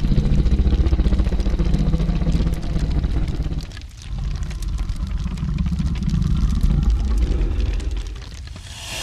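Dragon growl sound effect: two long, deep, rattling growls, the second starting about four seconds in.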